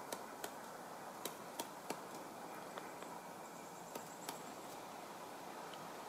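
Pileated woodpecker chipping into an old dead tree while foraging for food: about nine single, sharp pecks at irregular spacing, bunched in the first couple of seconds and sparser after, rather than a drumming roll.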